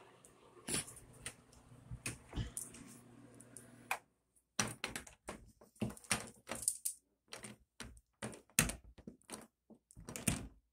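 Irregular sharp clicks and light knocks close to the microphone, a few at first and then several a second: plastic hair beads and the phone knocking together as the phone is handled.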